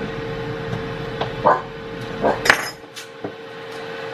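Dishes and utensils clinking and knocking a few times in a kitchen, the sharpest clink about two and a half seconds in. Under them runs a kitchen appliance's steady hum.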